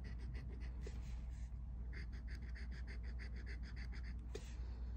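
Rapid back-and-forth scratching of a scratch-off lottery ticket's coating with a pen-style scratcher tool, about six strokes a second, with a short pause about a second and a half in and another near the end.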